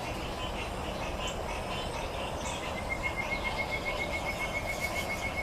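Frogs calling at a pond, one giving a rapid high pulsed trill that stops and starts again about halfway through, with short scattered chirps over a steady background chorus.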